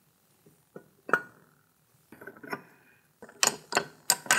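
Metal parts of a crankshaft installer tool clinking and tapping as it is fitted to the crank through the engine case: a few separate clinks, one ringing briefly about a second in, then a quicker run of clinks near the end.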